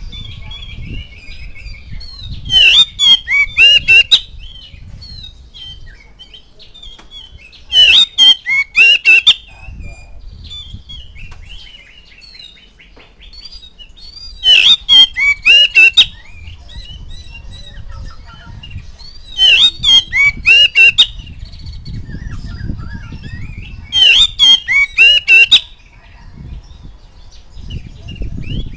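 Oriental magpie-robin singing: loud bursts of varied, sliding whistled song about every five seconds, each about a second and a half long, with quieter twittering in between.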